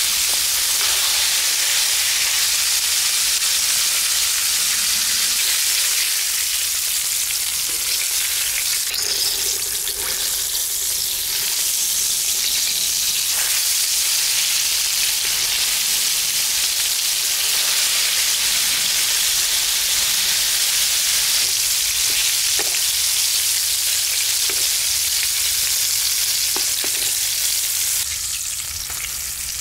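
Coated chicken drumsticks deep-frying in hot oil in a metal wok: a steady, loud sizzle with faint crackles, a little quieter near the end.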